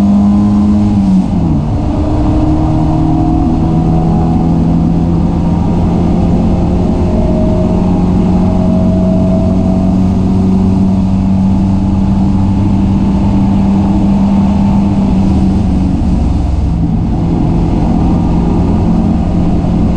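Race car engine heard from inside the cabin under way on track. Its note dips sharply about a second in, then holds a steady pitch, over road and wind rush.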